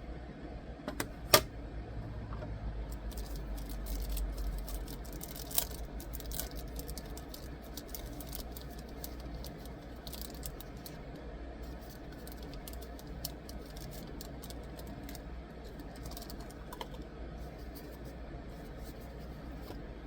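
Small hard items from a screen-protector kit being handled and set down: scattered clicks, taps and light rattling, with a sharp click about a second in and another about five seconds in, over a steady low hum.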